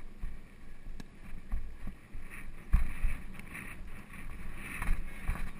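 Wind buffeting the microphone of a rider-worn action camera on a cantering polo pony, with irregular low thumps from the horse's stride and a few sharp clicks; the heaviest thump comes a little before halfway.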